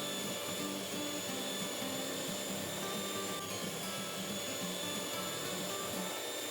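Electric mixer running steadily with a high motor whine, beating cookie dough as flour is added, with background music.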